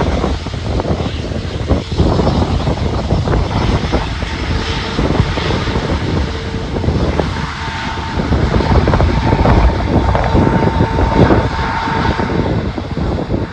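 Airbus A350-1000's Rolls-Royce Trent XWB turbofans at taxi power as the airliner rolls past close by: a loud rumble with a steady whine that comes in about halfway through and is loudest about ten seconds in.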